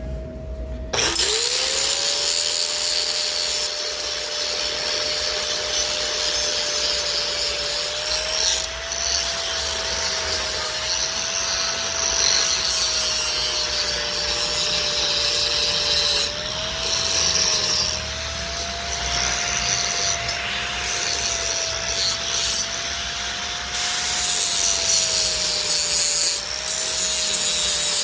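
Electric angle grinder grinding down weld beads on metal. Its motor whine dips about a second in as the disc bites, then wavers slightly under load through a steady rough grinding noise.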